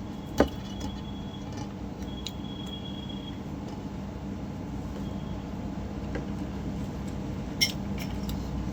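Quiet eating sounds over a steady low hum, with two short sharp clicks: one about half a second in and one near the end.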